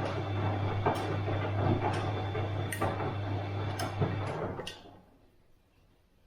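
Bosch washing machine running a wash cycle: a steady motor hum, with the drum knocking about once a second. The motor then stops about three-quarters of the way in, and the drum goes still.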